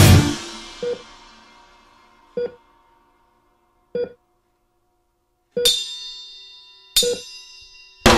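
A break in a heavy metal song. The full band cuts off and rings away, leaving five sparse single hits one to two seconds apart. The last two are louder and ring on. The whole band crashes back in near the end.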